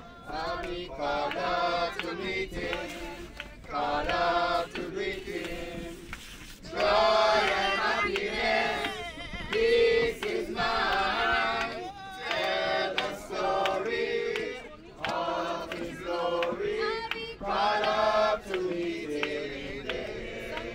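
A group of men and women singing a gospel hymn together, in phrases with short breaths between them.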